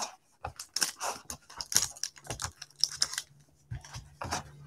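Gloved hands opening and handling a cardboard trading-card box and its packaging: a quick, irregular run of crinkles, scrapes and taps.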